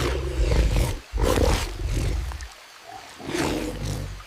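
Feral cat growling in deep, rough bursts, three of them with short breaks between.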